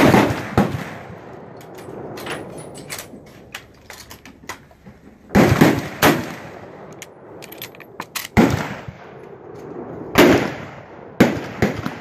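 Rifle fire on a shooting range: about seven sharp shots at irregular spacing, each followed by a short echo, from a timed string on a firing line.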